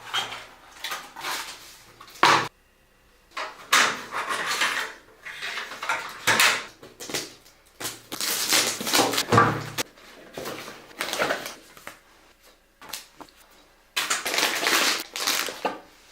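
Computer parts being handled and fitted during a PC build: irregular clicks, knocks and scraping, rustling clatter of plastic and metal pieces.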